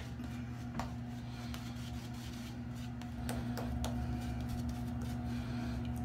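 Shaving brush working lather over the beard, faint soft brushing strokes, a little fuller in the second half, over a steady low hum.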